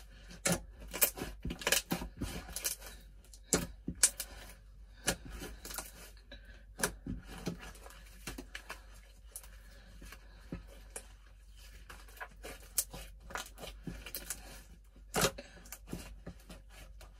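Glue-and-borax slime with clay mixed in being kneaded and stretched by hand, giving irregular sticky clicks and pops, thickest in the first few seconds and sparser afterwards, as the clay is worked through.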